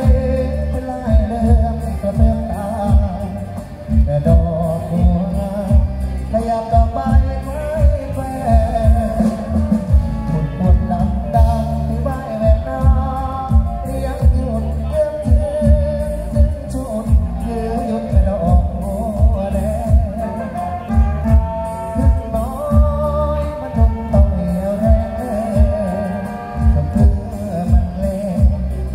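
A song with singing over a heavy, steady bass beat, played loud through big outdoor sound-system speaker rigs.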